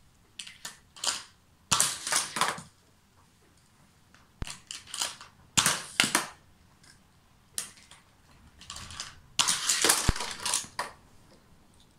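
Die-cast toy cars clattering and rattling as they are handled and rummaged through, in short irregular bursts with pauses between them.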